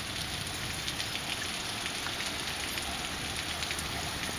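Heavy rain falling steadily, with individual drops ticking now and then.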